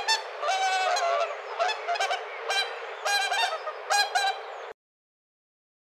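Swan honking: a run of short nasal calls, a few drawn out longer, over a steady background hiss, stopping abruptly near the end.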